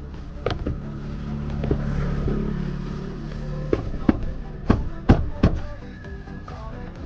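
Porsche Taycan interior door trim panel being knocked and pressed by hand, about seven sharp, irregular knocks, the loudest three close together past the middle.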